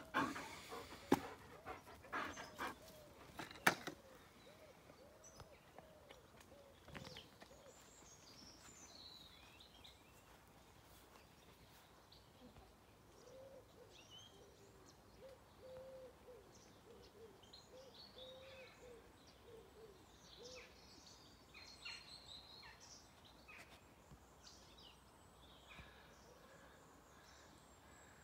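Quiet outdoor morning ambience with small birds chirping here and there. In the first few seconds a dog pants and there are a few sharp knocks and clatters.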